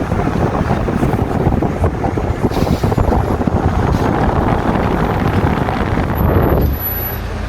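Qualitas 60 cm wall fan running, its airflow buffeting the microphone with a loud rushing flutter. About two-thirds of the way in the buffeting drops away, leaving a steadier low hum.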